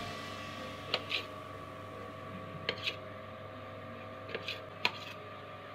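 Kitchen knife slicing through a rolled dough log and tapping the steel plate beneath: a few short clicks, some in quick pairs, over a faint steady hum.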